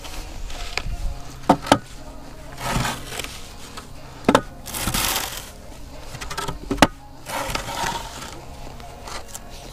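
Wooden screed board with an aluminium level on it scraped across a damp sand bed in several strokes, with a few sharp knocks of the board and level in between.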